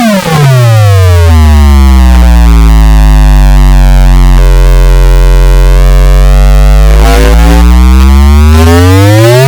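Synthesized bass sound effect, very loud: a tone with many overtones swoops down to a very deep steady drone in the first second or so, holds there, then sweeps back up in pitch near the end.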